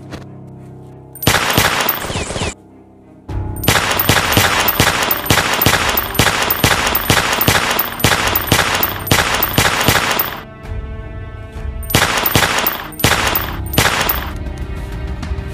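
Bursts of rapid gunfire, several shots a second, over background music. There is a short burst about a second in, a long run from about three seconds to ten, and a few more shots near the end.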